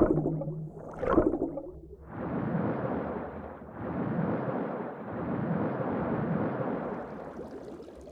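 Two sharp crashes about a second apart, then a rushing noise that swells three times and fades out near the end.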